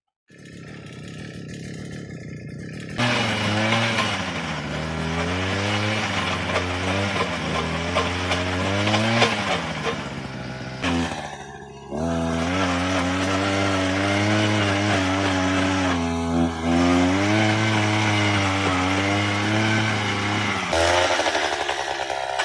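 Chainsaw running, quieter for the first few seconds and then loud with its pitch rising and falling under load. It drops briefly near the middle before picking up again and running steadily.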